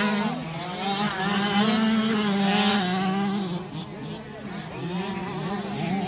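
Dirt bike engines running, their pitch rising and falling as the throttle is worked.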